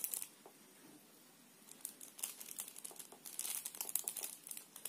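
Faint, irregular crackling and rustling, dropping away for about a second near the start before picking up again.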